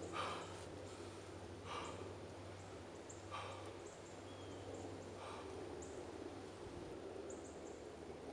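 Slow footsteps crunching in dry fallen leaves, one soft step about every second and a half, with small crackles of leaves, over a faint low hum.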